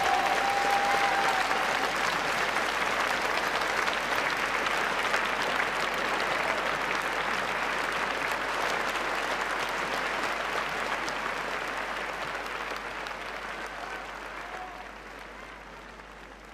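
Audience applauding steadily. The clapping dies away over the last few seconds.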